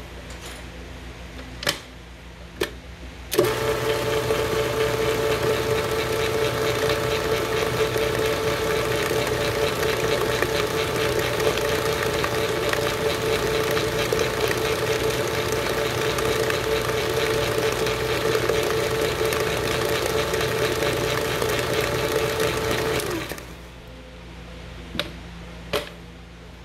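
A Hobart N50 stand mixer switches on a few seconds in and runs with a steady motor whine as its flat beater churns cookie dough in the steel bowl, then shuts off and spins down about 23 seconds in. A few sharp clicks come before it starts and after it stops.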